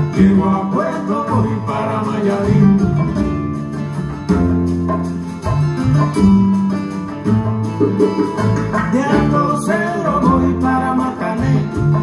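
Recorded music played back through 845 single-ended triode tube amplifiers and floor-standing hi-fi speakers: a country-style song with plucked guitar and singing.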